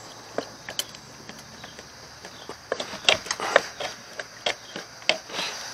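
Locking pliers and hands twisting a stuck rubber fuel hose off its fitting: irregular small clicks, taps and rubbing that come more often from about halfway through.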